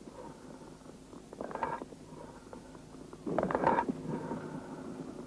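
Amphoric breathing heard through a stethoscope over the lung: two breath sounds with a hollow, pitched ring, the second louder and longer. This is the sign of a lung cavity or abscess.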